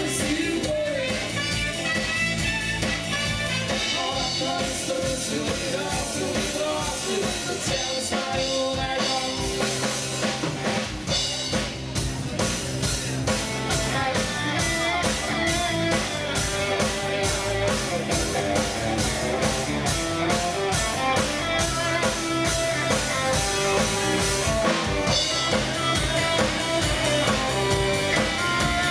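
Live rock band playing: two electric guitars and a drum kit keeping a steady beat, with a singer's voice over them.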